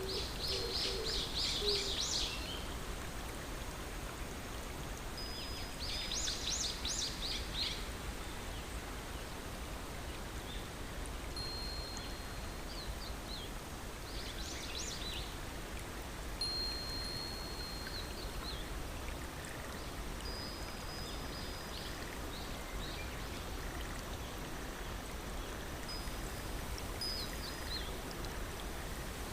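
A songbird repeating a short high song every few seconds, a thin held whistle followed by a fast trill, over the steady rush of a stream. A low hoot fades out in the first two seconds.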